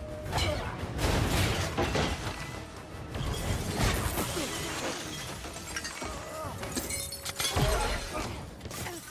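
Action-film fight sound effects: repeated crashes, impacts and shattering from a robot attack, mixed over the film's score.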